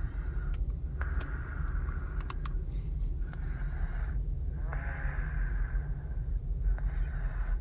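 A person snoring in sleep: long, raspy breaths a few seconds apart, one with a brief rattle, over a steady low rumble.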